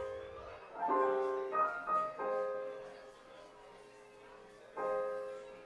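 Background piano music: a few soft chords struck and left to fade, with a lull in the middle.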